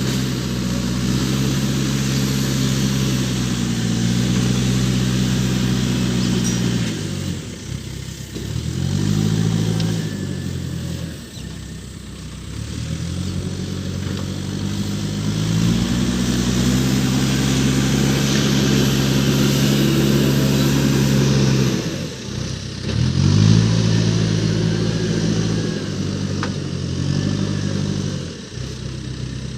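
A Case backhoe loader's diesel engine working under load. Its revs repeatedly fall away and climb back, with short dips about seven, eleven, twenty-two and twenty-eight seconds in.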